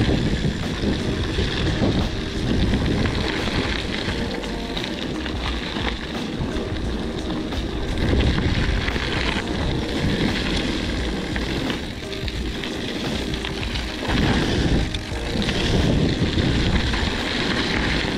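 1993 Mongoose Amplifier mountain bike being ridden on a dirt trail: steady rolling noise from the tyres and bike, with wind rushing over the camera microphone, swelling and easing with the riding. Background music runs underneath.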